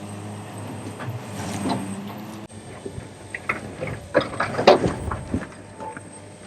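A John Deere excavator's diesel engine running with a steady hum, then, after a sudden cut, a run of irregular metallic clanks and scrapes, loudest near the middle, as the bucket works.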